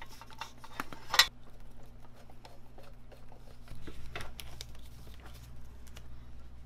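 Hands handling a plastic flexible-conduit connector and a bundle of cables: small plastic clicks and rustling of corrugated plastic conduit, with one sharp click about a second in. A steady low hum runs underneath.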